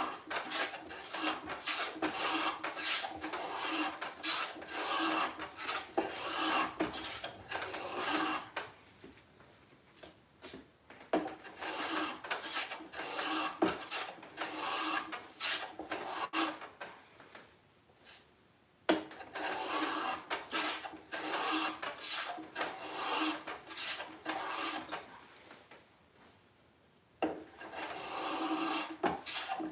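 Hand plane taking shavings off the edge of a wooden drawer side, in runs of quick rasping strokes with short pauses between them, to fit the drawer to its opening. A single sharp knock about two-thirds of the way through.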